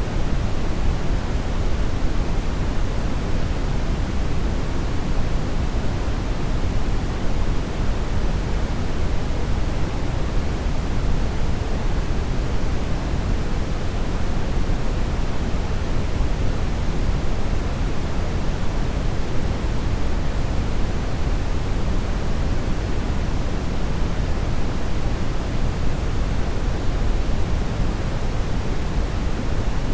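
Continuous synthetic brown noise: a steady, deep rush, strongest in the bass and fading toward the highs, with no change.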